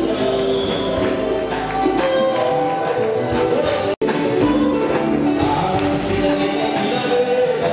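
Gospel worship singing: a man leads into a microphone while a group of singers joins in, over a steady percussion beat. The sound cuts out for an instant about four seconds in.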